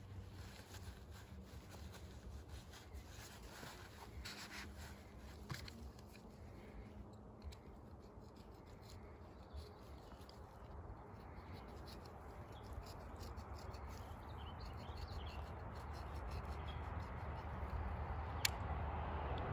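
Faint scratching and rubbing of a snap-off utility knife blade slitting open a Chinook salmon's belly. A rushing noise grows steadily louder over the second half, with one sharp click near the end.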